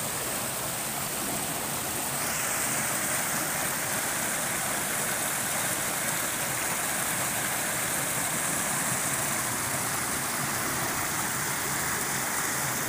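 River water rushing over and between boulders in small rapids, a steady rushing noise whose tone shifts slightly about two seconds in.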